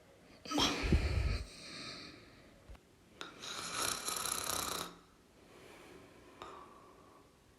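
A person snoring: a loud snore with a deep low rumble about half a second in, then a softer, hissing breath from about three to five seconds in, and faint breathing near the end.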